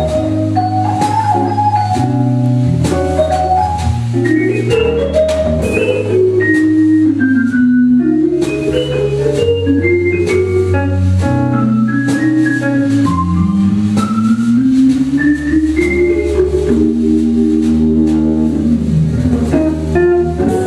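Jazz electric organ solo with the drum kit keeping time. Quick runs of notes sweep up and down over a bass line that changes every second or two, with cymbal strokes throughout.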